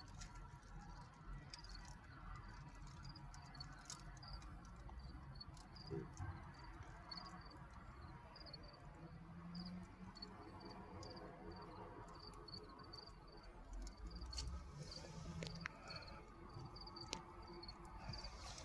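Faint insect chirping: a short, high chirp repeated steadily about twice a second, with a few scattered sharp clicks.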